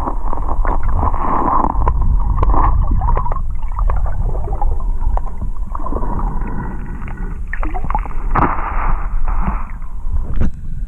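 River water rushing and gurgling, muffled as heard by a camera held underwater, with a deep steady rumble and scattered small clicks and knocks.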